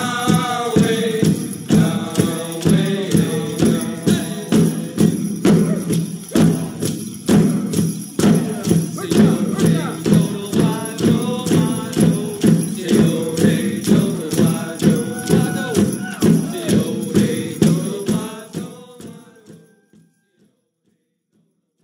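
Music: a steady drumbeat of about three beats every two seconds with jingling bells and singing voices. It fades out a couple of seconds before the end.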